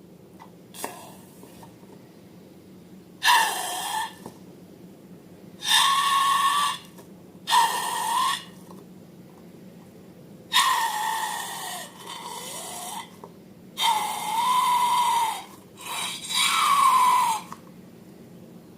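Air squealing out of a balloon's neck in about seven separate bursts, each a wavering whistle over a rush of air.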